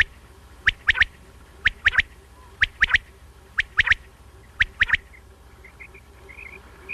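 Common quail calling: the sharp three-note 'wet-my-lips' phrase typical of the male, repeated about once a second, five times. After about five seconds a run of softer, quicker notes follows.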